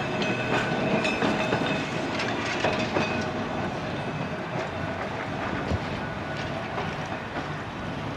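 Vintage single-deck tram No. 631 running past on street track and moving away, its wheels clicking over the rail joints with a thin whine. The whine and clicks are strongest in the first three seconds and fade as the tram draws off.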